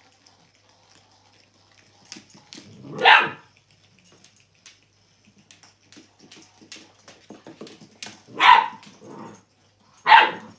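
Dog barking: three short, high barks several seconds apart, with faint light clicks and taps in between.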